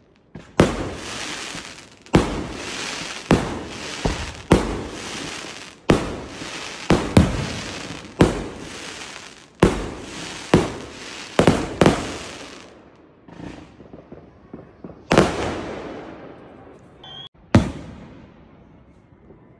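Aerial firework shells bursting, about a dozen sharp bangs in quick succession over the first twelve seconds, each trailing off in a crackling tail. After that two more bangs come some seconds apart, and the sound fades away near the end.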